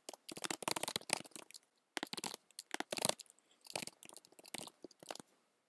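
Typing on a computer keyboard: quick runs of key clicks with short pauses between them, stopping near the end.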